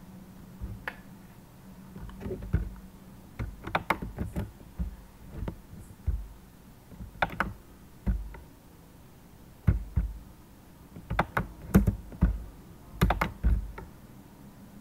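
Computer keyboard typing: short keystroke clicks in irregular bursts with pauses between them.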